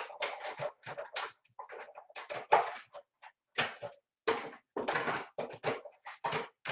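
Hand-cranked die-cut and embossing machine running cardstock in an embossing folder through its rollers: an irregular run of short clunks and scrapes, several a second.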